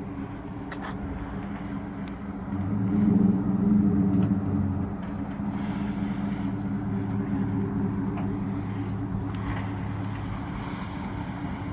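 Vehicle engine running as it drives, with a steady low hum. It picks up in level about three seconds in, then holds steady.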